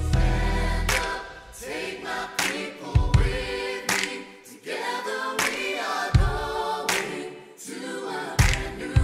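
Music: a group of voices singing together, with sharp percussive hits and occasional deep thumps.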